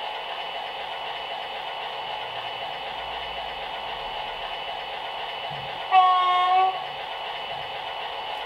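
Digital sound decoder in a Heljan Kestrel model diesel locomotive, playing the Roads and Rails 'Kestrel' sound file through the model's small speaker: the diesel engine idles steadily. About six seconds in, one short horn blast on a single steady note sounds for under a second, louder than the engine.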